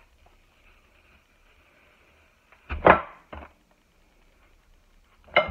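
An apple slicer being pushed down hard onto a whole apple that resists the cut: one loud knock a little under three seconds in, then a smaller one about half a second later.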